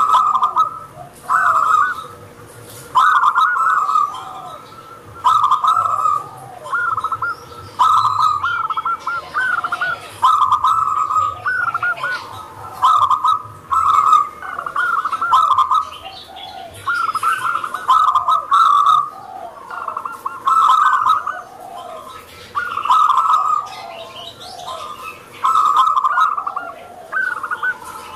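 Zebra dove (local perkutut) cooing, repeating its song phrase every one to two seconds. Fainter, higher chirps sound behind it.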